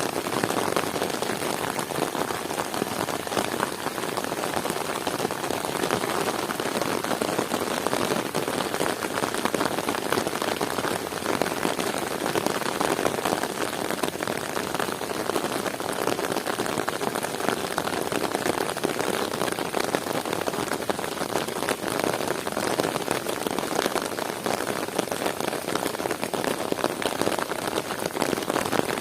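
Heavy rain falling steadily, a dense, even patter of raindrops.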